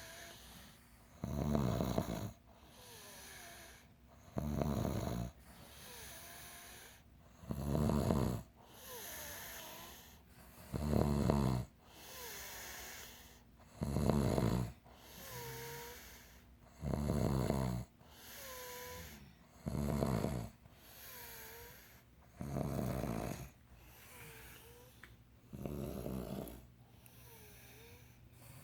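People snoring in their sleep: a loud snore about every three seconds, with softer breaths between them that carry a faint whistle.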